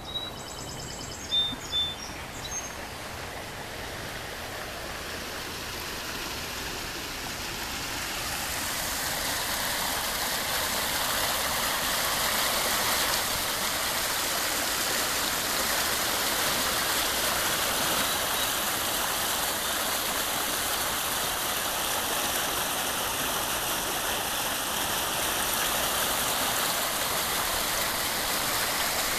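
Rain-swollen creek rushing and churning over rocks below a footbridge, running high after an inch of rain. The steady rush grows louder over the first ten seconds, then holds. A couple of short high chirps come about a second and two seconds in.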